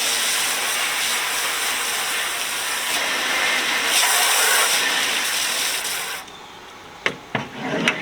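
Garden hose spraying water steadily onto sheet-metal tool box drawers, cutting off suddenly about six seconds in; a few sharp knocks follow near the end.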